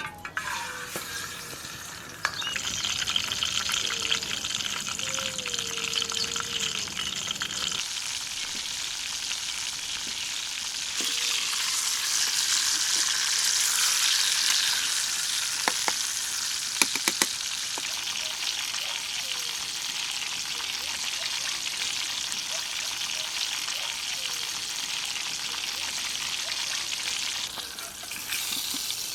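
Food sizzling as it fries in a pan, a steady high hiss that jumps in level a few times, with a few sharp clinks a little past halfway, as of a utensil against the pan.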